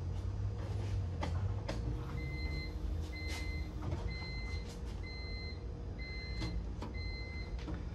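An electronic warning chime beeping six times at an even pace, about once a second, starting about two seconds in, over a steady low hum and a few faint clicks.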